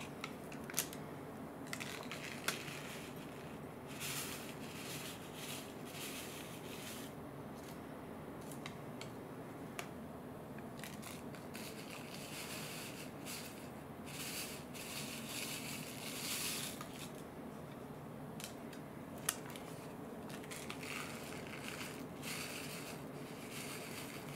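Small foil furikake sachets crinkling and rustling in the hand in uneven bursts as the dry seasoning is shaken out onto a bowl of rice, with a few sharp clicks.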